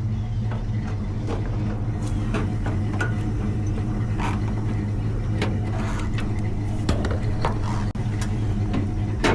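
1990 Dodge Ram 150's throttle-body-injected engine idling steadily in the background after a no-start fault was fixed, with a few scattered light knocks.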